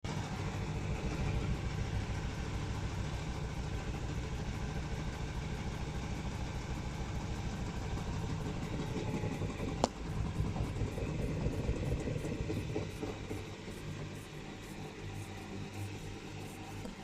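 Washing machine running with a rapid, steady knocking rumble from the drum, the knocking the machine is not meant to make; it eases off about three-quarters of the way through. A single sharp click sounds about halfway.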